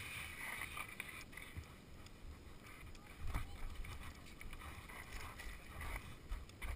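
A BMX bike rolling slowly over concrete and then gravel, heard from a helmet camera: tyre noise on the surface with scattered sharp clicks and knocks, and low rumbling swells on the microphone from about three seconds in.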